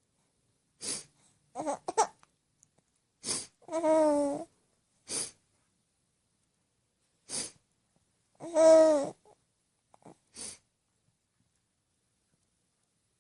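A woman sniffling through her nose in short, sharp sniffs, about five of them spread out. In between, a two-month-old baby gives little laughing coos: a quick giggle early on, then two longer, louder laughs.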